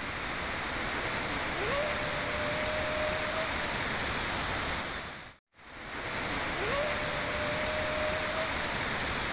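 River rushing steadily, with a single drawn-out tonal call that rises quickly and then holds one pitch for about two seconds, which the uploader hears as a woman moaning in pain. The passage plays twice, broken by a brief silence about halfway.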